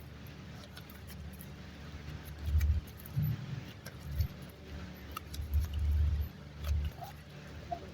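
Hands pressing and working soft super light clay, giving soft low thuds every second or so with faint small clicks and crackles between them.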